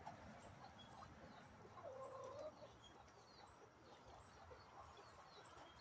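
Near silence with faint soft calls from backyard ducks and chickens: one low call about two seconds in and a few small high chirps.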